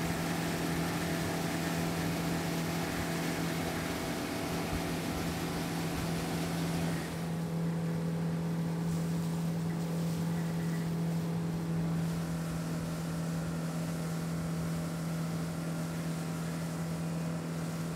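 Jet boat engine running steadily: a constant drone with a steady hiss over it that lessens about seven seconds in.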